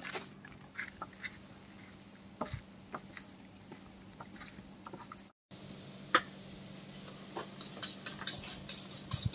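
Hands working spice-coated raw chicken pieces on a banana leaf, with faint wet squishes and taps. Near the end, after one sharp click, a fast run of sharp high ticks comes in, about five a second.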